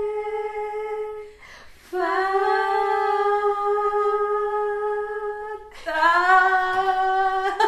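A woman singing unaccompanied, holding three long, steady notes, with a short breath after the first; the middle note is the longest.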